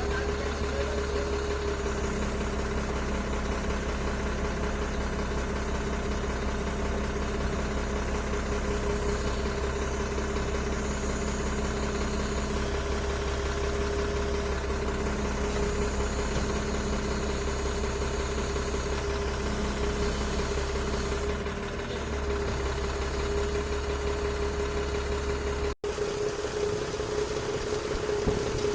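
Heavy diesel engine idling steadily, with a low rumble and a constant hum. The sound drops out for an instant a few seconds before the end.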